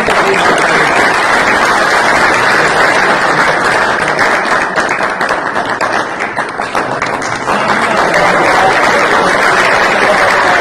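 Audience applauding: many hands clapping steadily, easing off slightly for a moment about two-thirds of the way through.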